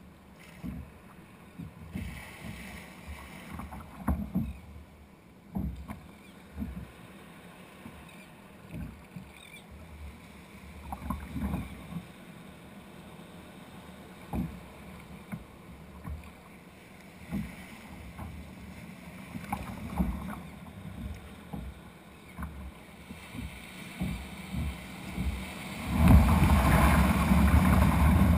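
Sea water slapping and splashing against a kayak's plastic hull in the surf, in irregular thumps every second or two. Near the end a breaking wave's whitewater surges around the kayak in a loud, sustained rush.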